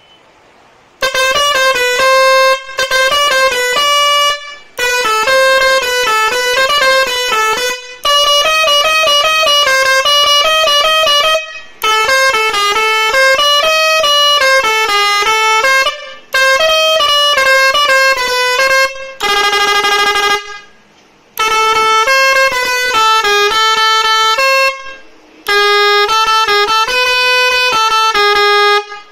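Six-trumpet Bosco air-pressure musical horn playing short preset melodies, loud and brassy. It starts about a second in and switches tunes every few seconds, with brief stops between them as new tune buttons are pressed.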